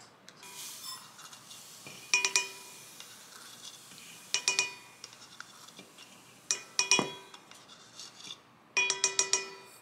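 Metal spoons and a metal measuring cup clinking against a stainless steel mixing bowl, each strike leaving a short ring: a few single clinks, then several in quick succession near the end. Sugar is being poured into the measuring cup.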